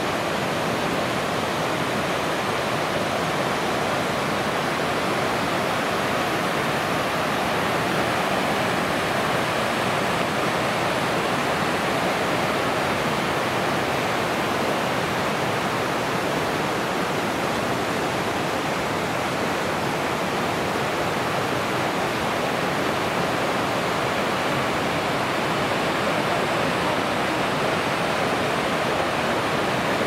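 Steady rush of fast-flowing water from the white-water mountain river and waterfalls, an even, unbroken noise throughout.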